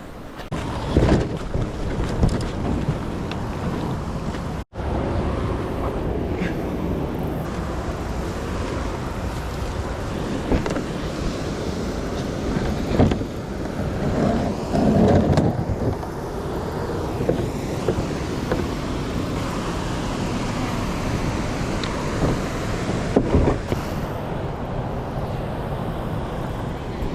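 Steady rush of river water pouring over a low-head dam, with wind buffeting the microphone and a few brief thumps.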